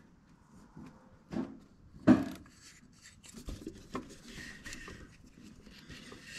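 Fingers rubbing and handling thin ignition wires at a distributor, with faint rustling and two short knocks, the louder one about two seconds in.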